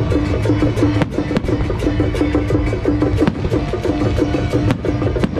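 Loud music with a steady drum beat and a fast, repeating melody, with a few sharp cracks standing out over it.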